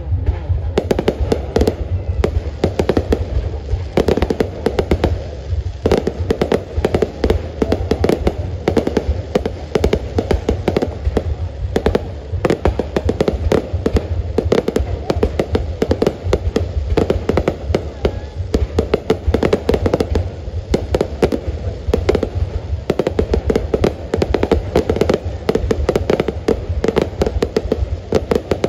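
Fireworks display: an unbroken barrage of aerial shell bursts and crackling, many bangs a second.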